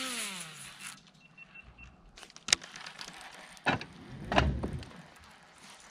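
Baitcasting reel spool whirring through a cast, its whine falling in pitch over about a second as the spool slows. A sharp click follows about two and a half seconds in, then a few knocks.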